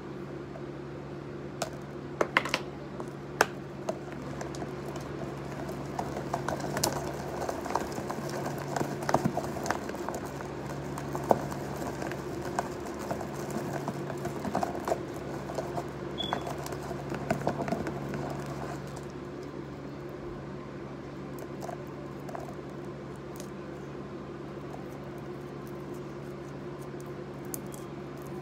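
A stick stirring slime in a clear plastic tub: irregular clicks and scrapes against the plastic that stop about two-thirds of the way through, over a steady low hum.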